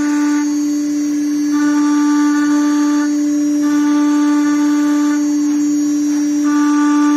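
5.5 kW CNC router spindle running with a steady high whine while its cutter engraves lettering into a plate. A higher cutting tone on top comes and goes: it drops out about half a second in, again around three seconds, and once more for over a second near the end.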